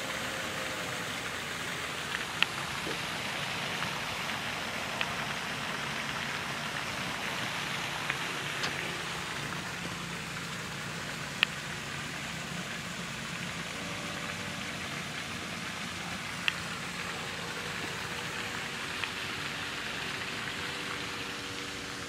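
Steady background hiss with a faint low hum, broken by a few sharp isolated clicks scattered through it.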